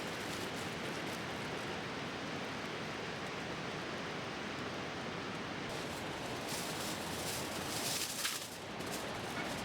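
Wood bonfire burning with a steady hiss and crackling, and sharper crackles in the second half.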